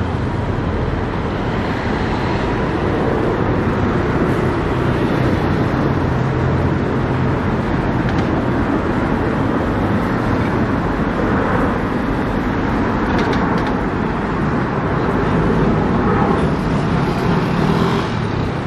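Road traffic on a city street: cars passing with a steady rumble of engines and tyres.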